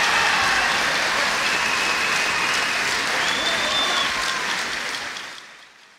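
Badminton hall audience applauding, with a few long high tones over the clapping, fading away near the end.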